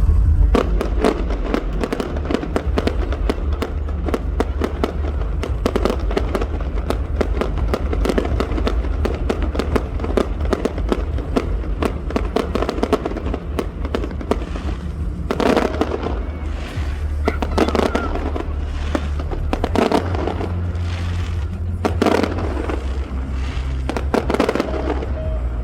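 Fireworks display: a dense, rapid string of bangs and crackles, with several heavier bursts in the second half, over a steady low rumble.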